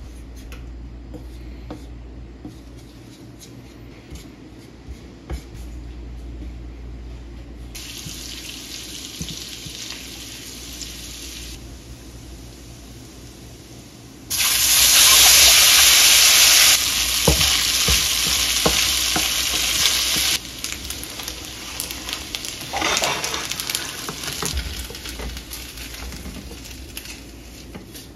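Stainless frying pan of hot butter, olive oil and garlic sizzling faintly, until wet boiled ricotta gnocchi are dropped in from a spider strainer about halfway through and the fat breaks into a loud, steady sizzle. The sizzle eases over several seconds, with the tapping and scraping of a wooden spoon near the end.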